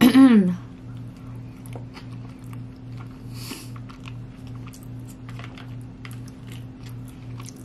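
Close-up chewing of a sushi roll, with many small wet clicks and a brief crunchy burst about three and a half seconds in. It opens with a short hummed 'mm' falling in pitch, the loudest sound, and faint background music with a low pulsing beat runs underneath.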